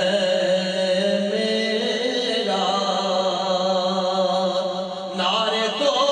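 A man singing a naat, an Urdu devotional poem, in long drawn-out held notes that step up and down in pitch, with a new phrase starting about five seconds in.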